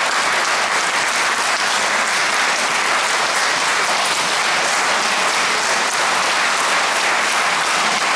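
Audience applauding steadily, a dense even clapping with no let-up.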